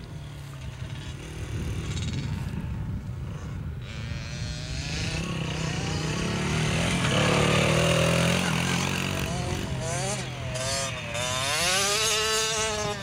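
Dirt bike engine running on a motocross track, louder as the bike comes near about seven seconds in, then its revs rising and falling several times toward the end.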